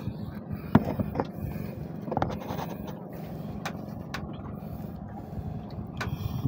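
Outrigger boat's engine running steadily with a low hum, with a few light knocks.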